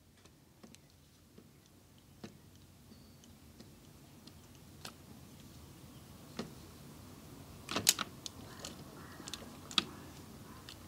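Hasbro Baby Yoda animatronic's plastic gearbox being turned by hand: scattered light plastic clicks and ticks from the gears and cams, the loudest a short cluster about eight seconds in.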